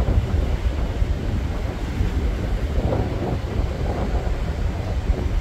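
Wind buffeting the microphone on the open deck of a moving ferry: a gusty low rumble with a rushing hiss over it.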